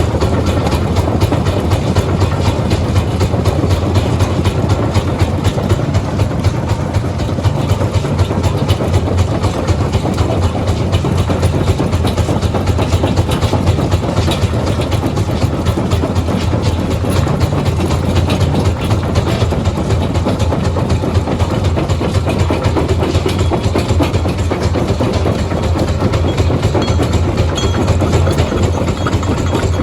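Heavy rock-crushing machinery running steadily: a continuous low drone with dense rattling and knocking throughout.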